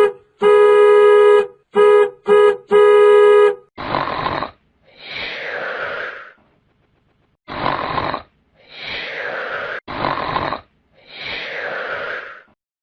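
A sound-effect sequence: an electronic buzzing tone sounds in five blasts, short, long, short, short, long. Then a cartoon-style snore repeats three times, each a rasping intake followed by a falling whistle.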